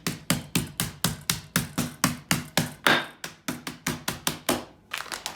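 Chicken breast sealed in a plastic bag being pounded flat with a tenderizing tool: a steady run of sharp thuds, about four a second, quickening for the last few strikes near the end.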